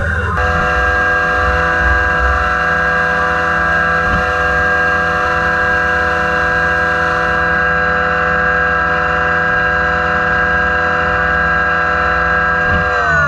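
CNC machining center's spindle running an end mill through an aluminium block: a loud, steady, high whine of several tones. Near the end its pitch falls as the spindle slows.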